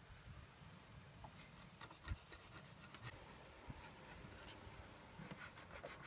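Faint wood-on-wood rubbing and light knocks as a stud-timber support arm is pushed by hand into a notch cut in an upright, a test of the joint's tight fit, with one soft thump about two seconds in.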